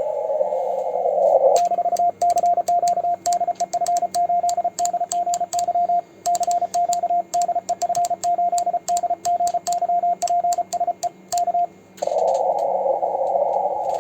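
Morse code sent with a homemade 3D-printed spring-return paddle key: the transceiver's CW sidetone, a single steady tone, keyed in fast dots and dashes from about a second and a half in until nearly the end, with sharp clicks of the keying. Before and after the sending, steady receiver hiss through a narrow CW filter.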